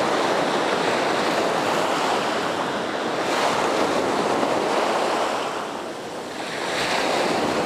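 Small ocean waves breaking and washing up a sandy beach at the water's edge, with wind on the microphone. The surf eases about six seconds in and swells again near the end.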